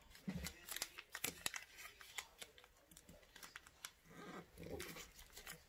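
Origami paper being folded and creased by hand: a run of small, irregular crisp clicks and crinkles as the folds are pressed down.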